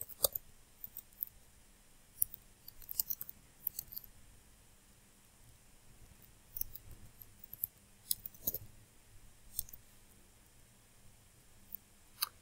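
Faint computer keyboard typing: scattered key clicks in short, irregular runs with pauses of a second or two between them.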